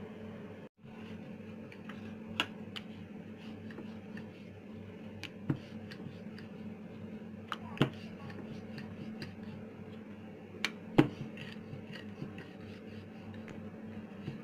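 Wooden rolling pin rolling out chapati dough on a floured surface, with a few sharp knocks and clicks at uneven intervals over a steady low hum.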